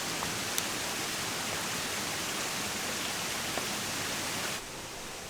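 Steady rush of water from a creek waterfall, a constant hiss with no distinct splashes, dropping to a somewhat quieter hiss near the end.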